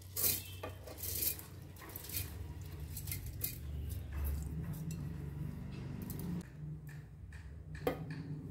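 Raw rice being tipped and scooped by hand from a steel bowl into a steel mixer-grinder jar: grains rustling and pattering onto the metal, with sharp clinks of the bowl knocking the jar, the loudest just after the start, about a second in and near the end.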